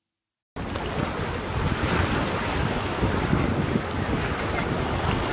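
Wind buffeting the microphone over the wash of sea waves, starting abruptly about half a second in and running on steadily.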